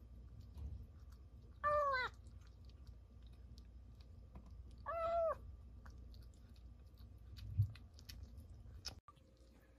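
Small kitten meowing twice, short high calls about three seconds apart, each rising then falling, between faint clicks of chewing wet food and kibble. A dull thump comes near the end.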